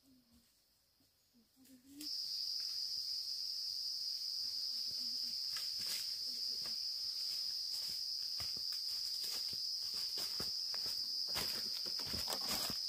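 A steady, high-pitched insect buzz that starts abruptly about two seconds in, with scattered light clicks and taps over it, more of them near the end.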